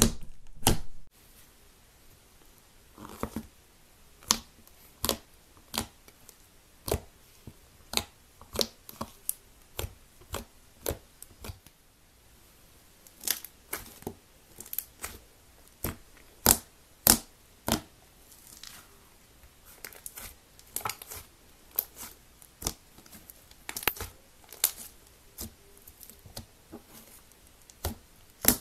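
Hands kneading and pressing thick, fluffy slime, giving sharp irregular clicks and pops, about one or two a second, as air pockets in the slime are squeezed and burst.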